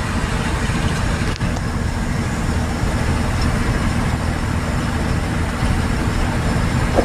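Truck cruising at steady speed on a highway, heard from inside the cab: a constant engine drone with tyre and road noise.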